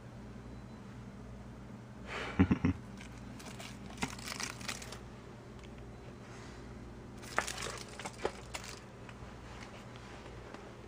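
Dry crackling rattles in three short bursts: a dragonfly's wings whirring and scraping against a tile floor as a cat bats it about. The first burst, about two seconds in, carries a few sharp knocks.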